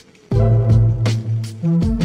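Background music with a heavy bass line and a steady drum beat; it drops out briefly at the start and comes back in loud about a third of a second in.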